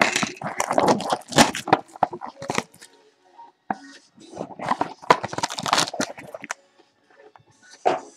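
Crinkling and crackling of a 2013 Topps Tier One trading-card pack's silver foil wrapper as it is handled and torn open. It comes in two stretches of irregular rustling with a short pause about three seconds in, then one brief crinkle near the end.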